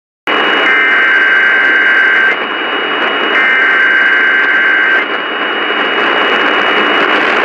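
Emergency Alert System SAME header tones received over a radio: two rasping digital data bursts, each about a second and a half long with about a second between them, over heavy static hiss and a steady high whistle. The bursts mark the start of a new alert.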